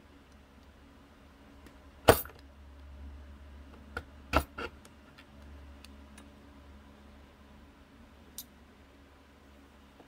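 Small metal parts and a hand tool clinking as they are handled and set down on the bench: a few sharp clinks, the loudest about two seconds in, a quick cluster a little before the middle and a fainter one near the end, over a low steady hum.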